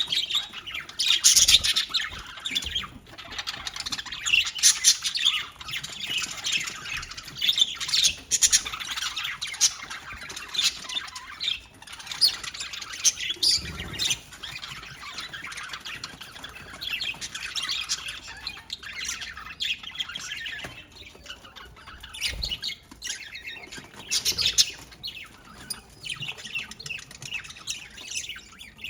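Several budgerigars chirping and chattering nonstop, with louder squawks now and then.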